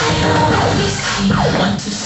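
Upbeat electronic funk dance music with a steady beat, played over the studio loudspeakers for the aerobics routine, with quick falling record-scratch sweeps a little past the middle.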